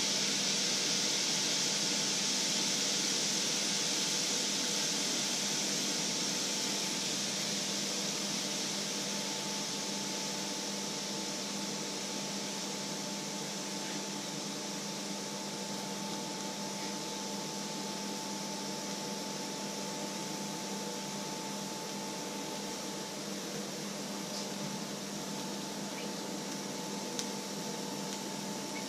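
Liquid sizzling and bubbling in a hot black steel pan on an electric hob, the hiss slowly fading as the pan boils dry. A steady hum runs underneath.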